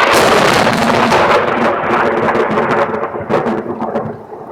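Close thunderclap from a nearby lightning strike: a loud crackling peal that rumbles on, eases off near the end, then swells again.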